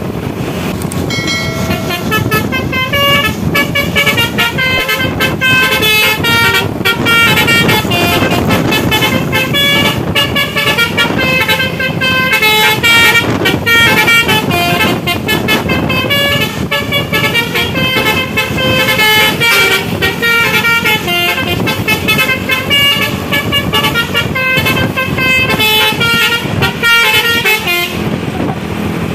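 A bus's basuri (telolet) musical air horn playing a fast tune of short notes, several a second, over the running engine and road noise. The tune starts about a second in and stops shortly before the end.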